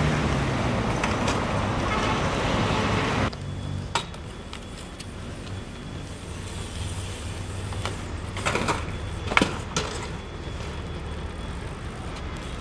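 Loud road traffic with a heavy vehicle engine running, cutting off abruptly after about three seconds to quieter street background. A few sharp knocks follow, the loudest a little past the middle.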